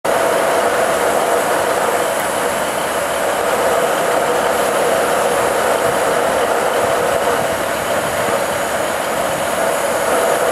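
British Rail Class 47 diesel locomotive at a station, its engine running at a steady level with no change in pitch or loudness.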